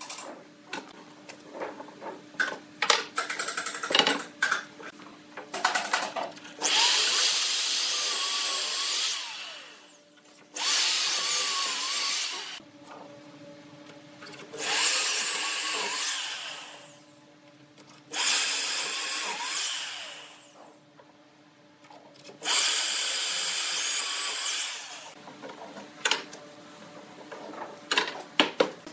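Electric drill with a long bit boring into the edge of a wooden board through a wooden guide block, in five runs of about two to three seconds each. Sharp knocks and clatter from handling the jig and board come between the runs and at the start and end.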